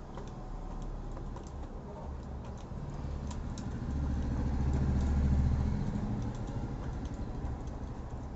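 Light clicks and taps of a screwdriver working loose plastic sections of a top-load washing machine's tub centre, over a low rumble that swells about halfway through.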